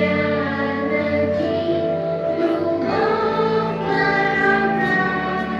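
Music with choral singing: voices holding long notes over an instrumental backing, played as the soundtrack of an open-air sound and light show.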